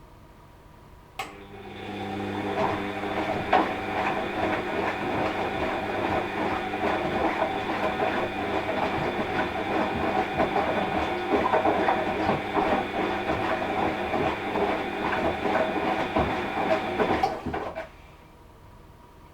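Washing machine starting up with a click, then its motor running with a steady whine and dense rattling and clatter for about sixteen seconds before stopping fairly suddenly. A faint steady hum is there before and after.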